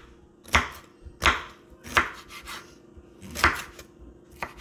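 Kitchen knife slicing through a red bell pepper and knocking on a wooden cutting board: about five separate cuts, a few in quick succession, then a pause and one more, with a small tap near the end.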